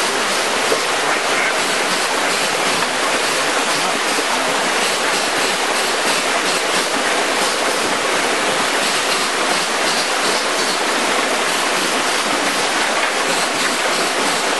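Floodwater from an overtopped lake rushing steadily through the breach in an eroding sand dam and down a flume: a dense, even rush of turbulent water.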